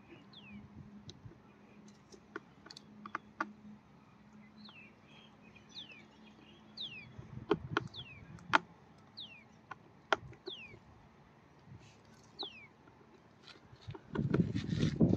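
A bird calling again and again with short, high whistles that slide downward, over scattered small clicks of handling. Near the end there is a louder burst of rustling and knocking.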